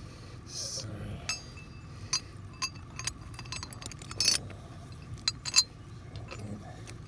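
Steel bow shackle clinking against an R-clip and a steel star picket as the shackle is fitted by hand: a scattered string of short, sharp metal clinks, the loudest a little past the middle.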